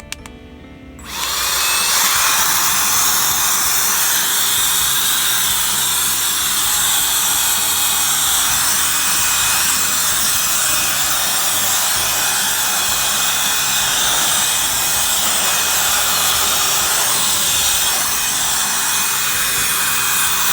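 Cordless rechargeable mini blower switched on about a second in, then running steadily: a loud rush of air with a thin, high motor whine.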